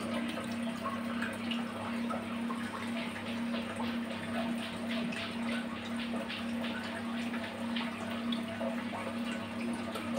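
Aquarium water circulation running: a continuous light trickling and splashing of water over a steady low electric hum from the pump.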